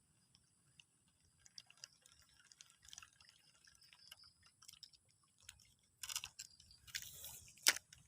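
Faint, irregular ticking of a fishing reel being wound as a soft frog lure is retrieved. About six seconds in come a few louder rustles and a sharp click.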